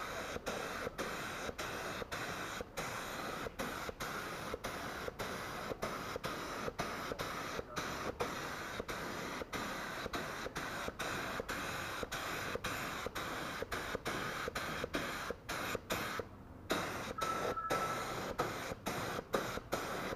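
Gravity-feed spray gun hissing steadily as it sprays PU paint onto a steel wheel, laying down a red base coat, with short regular breaks in the hiss.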